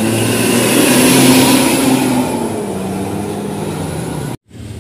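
Large bus's diesel engine running hard and revving, with a loud hiss over it; the sound cuts off suddenly near the end and a quieter engine sound follows.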